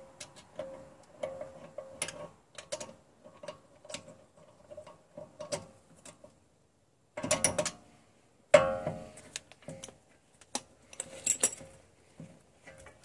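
Metal clicking and clinking as a hand socket wrench turns the rear brake caliper bolt, with two louder metallic clanks that ring on, about seven and eight and a half seconds in, and another run of clicks near the end.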